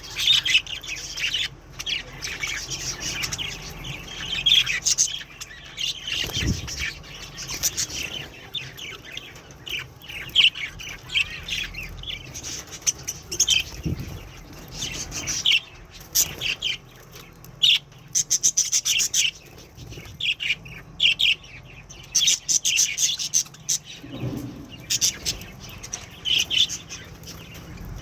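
Flock of pet budgerigars chirping and chattering continuously in short rapid high calls, with a few soft low thuds.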